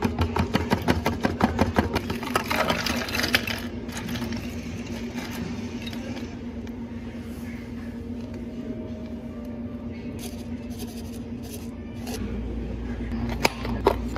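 A spoon stirring a drink in a plastic cup, rapid clicking against the cup for about three seconds, then quieter handling over a steady machine hum. Near the end a sharp click as a plastic dome lid is pressed on.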